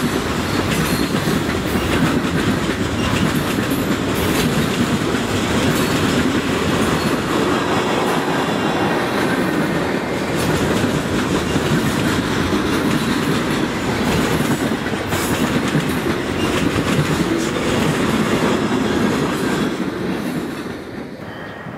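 Freight train of boxcars rolling past at speed, steel wheels clattering on the rails. The noise falls off near the end as the last car goes by.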